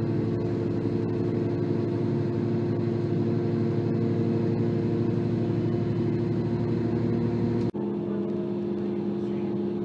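Diesel train engine running steadily with a low rumble and a steady drone. It cuts off abruptly near the end and carries on with a thinner, less rumbling sound.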